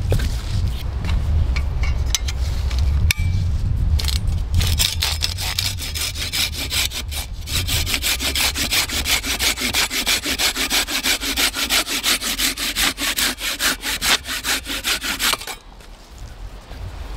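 A hand saw cutting through a log in fast, even back-and-forth strokes, starting a few seconds in and stopping shortly before the end. Before the sawing there is a low rumble and a few knocks as the log is set in place.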